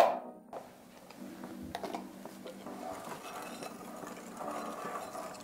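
A single tap at the start as the plastic cup is knocked to empty the cornstarch, then, from about a second in, a wire whisk beating egg yolks, sugar and cornstarch in a glass bowl: a steady, fast scraping and clicking.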